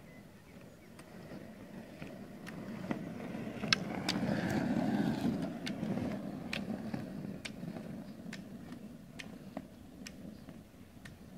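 Roller ski wheels rolling on asphalt, a rumble that builds and fades as the skier skates past, loudest about halfway through. Sharp clicks of the ski-pole tips striking the road come about once a second.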